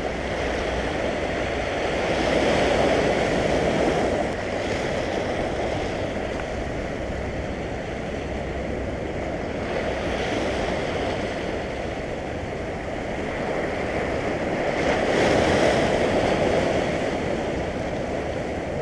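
Sea surf washing over low shore rocks close by, a steady rush that swells twice, about three seconds in and again about fifteen seconds in, with wind rumbling on the microphone.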